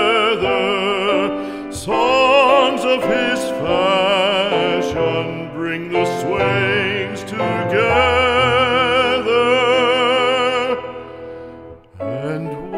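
Music: a classical song sung in an operatic style with wide vibrato. The singer holds a long note before the music dies away near the end.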